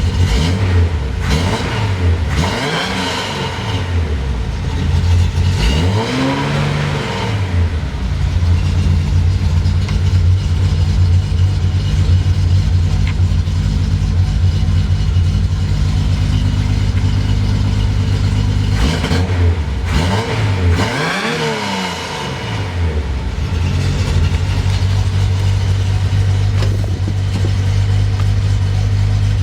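Datsun 240Z's straight-six engine idling steadily, revved up and let fall back to idle a few times. The idle holds at about 1,000 rpm now that a leaking intake balance-tube gasket, the cause of its rough idle, has been replaced; the carburettors are not yet tuned.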